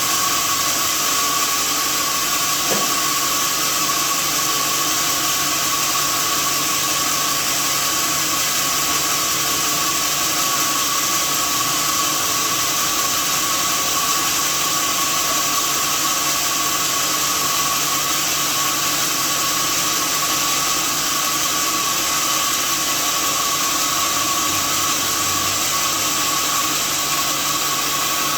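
Sawmill saw running steadily: a constant high whine over a loud, even hiss.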